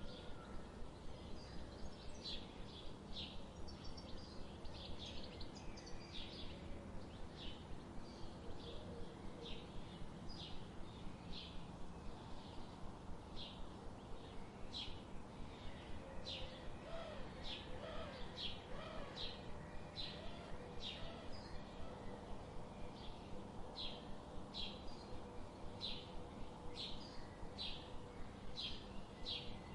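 Birds chirping in a forest: one bird repeats a short, high chirp about twice a second, with a few lower, gliding calls from another bird in the middle, over a steady low background rumble.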